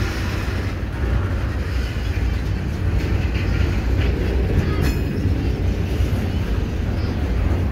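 Freight cars rolling past at close range: a steady, loud rumble of steel wheels on the rails, with one sharp click about five seconds in.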